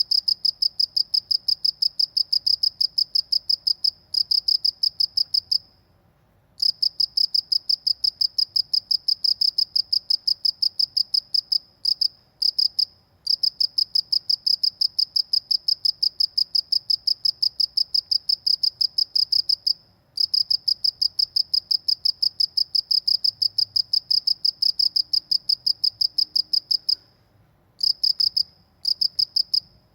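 A cricket chirping loudly in a fast, even train of high-pitched pulses, broken by a few short pauses of under a second.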